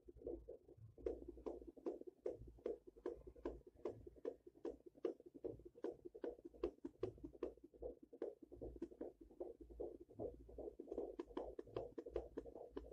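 The fetal heartbeat at four months of pregnancy, picked up by a handheld Doppler monitor and heard through its speaker as a fast, regular whooshing pulse.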